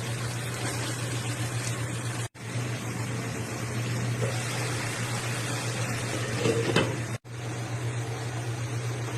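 Steady low hum of a kitchen appliance or fan over an even hiss, with a few faint clinks about six and a half seconds in; the sound cuts out for an instant twice.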